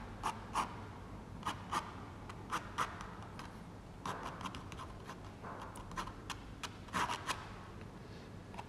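Ink pen scratching quick strokes across rough 300 lb Arches watercolour paper: a run of short, irregular scratches with brief pauses between them.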